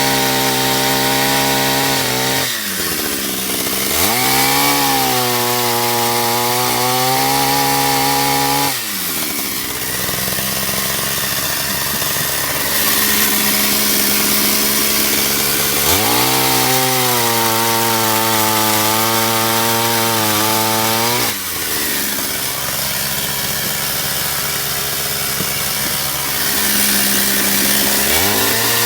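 Stihl 031AV two-stroke chainsaw running at full throttle through cuts in wood. Its engine pitch drops and holds lower under load for several seconds, then climbs back up, three times over. It keeps running strongly with its new carburetor, no longer stalling.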